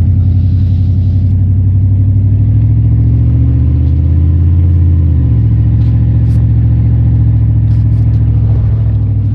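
Steady low drone of a vehicle's engine and road noise, heard from inside the cab while driving. The pitch rises slightly for a couple of seconds, then drops back about five seconds in.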